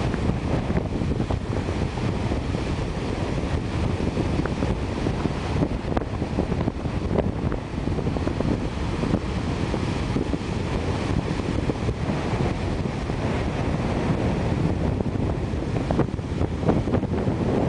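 Strong wind buffeting the microphone over the steady rush of heavy storm surf breaking on the shore.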